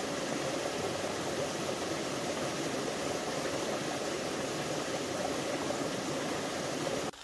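Small mountain stream splashing down over rocks in a steady rush of water, cutting off suddenly near the end.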